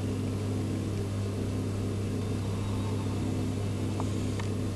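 Steady low background hum with a few faint overtones above it, and a faint tick about four seconds in.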